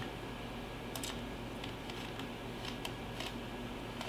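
Faint, scattered small clicks of a screwdriver driving small screws into the front label plate of a Digitrax UP5 panel board, over a steady low hum.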